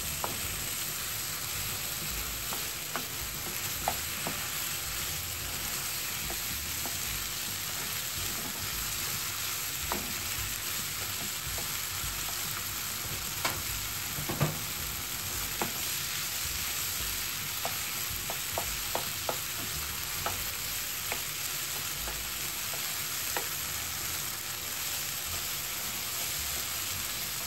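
Chicken, diced vegetables and ketchup sizzling steadily in a nonstick frying pan as they are stirred with a wooden spatula, with a few light clicks of the spatula against the pan. The ketchup is being fried into the filling to cook off its sourness.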